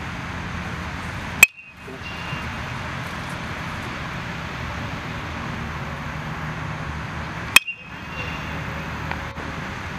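A metal baseball bat hits a thrown ball twice, about six seconds apart. Each hit is a sharp ping with a short metallic ring.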